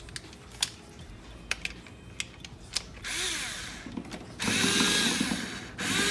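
Battery-operated screwdriver running in two short bursts, a brief whir about halfway through and then a longer, louder one, after a few seconds of light clicks and taps. Its worn Phillips bit is slipping in the outlet's screw and not turning it well.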